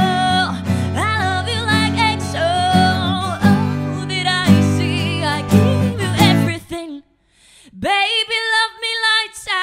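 A woman sings long, wordless held notes over a strummed acoustic guitar. The accompaniment stops about seven seconds in, and after a short silence the voice comes back alone, unaccompanied, on long held notes.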